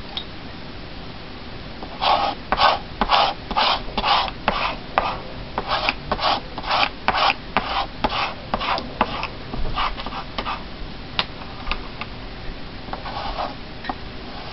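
Hand rubbing across a sheet of canvas paper, smoothing it down onto a glued journal page: a run of quick rasping strokes, about two a second, starting about two seconds in and stopping near the middle, then a few light taps and a short second bout of rubbing near the end.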